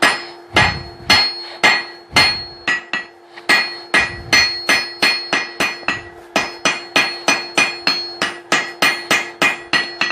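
Blacksmith's hand hammer striking hot steel on an anvil in a steady run of ringing blows, about two a second at first and quickening to about three a second from about four seconds in, as the steel is drawn out into a taper.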